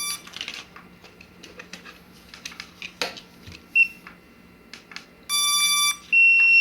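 Drone remote controller beeping: a short high beep about four seconds in, then two longer electronic beeps near the end, the last one the loudest, with small clicks and taps of handling between them.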